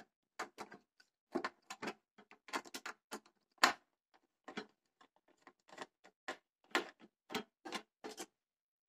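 Irregular clicks, taps and knocks of hands working at the metal casing and cables of a home power inverter as it is being taken apart.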